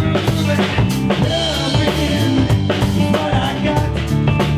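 Rock band playing live, the drum kit's regular beat prominent under electric guitar.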